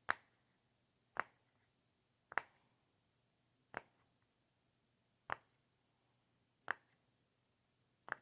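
Sharp, short pops from an unidentified source, seven of them about one to one and a half seconds apart, the gaps slowly lengthening.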